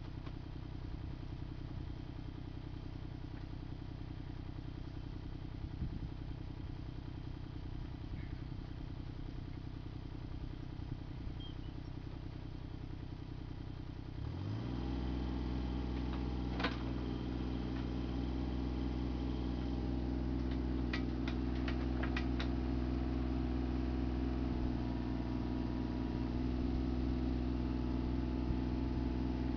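Mini excavator's diesel engine idling steadily, then throttled up about halfway through to a higher, louder steady run as the machine is readied to move. A sharp clank comes shortly after, then a quick cluster of clanks a few seconds later.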